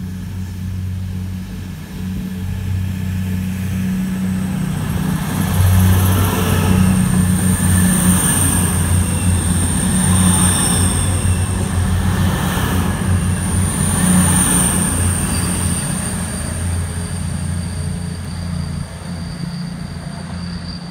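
Class 222 Meridian diesel multiple unit passing through the station: the low hum of its underfloor diesel engines grows as it draws near and is loudest as the coaches go by, with a thin high whine over the top, then fades as the train moves away.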